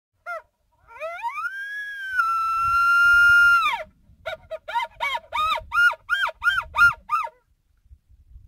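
Elk bugle call blown through a bugle tube, imitating a bull elk: a short yelp, then a whistle that rises and holds high for about two and a half seconds before dropping off, followed by a run of about ten quick chuckling grunts.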